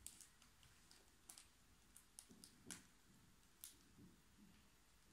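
Near silence with a scattering of faint clicks and soft rustles from a hand handling and tilting a lenticular trading card.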